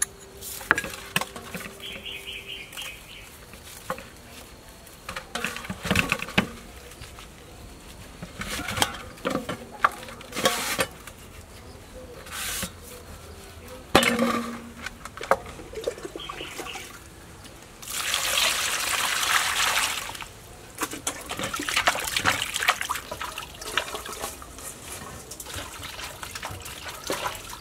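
Hands rubbing and turning salted, peeled pineapples in a stainless steel basin with water: wet sloshing and squelching, with scattered knocks and clicks. About two-thirds of the way through there is a louder stretch of splashing lasting about two seconds.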